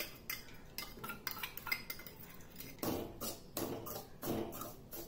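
A spoon scraping and clinking irregularly against a pan while stirring roasted semolina with powdered sugar.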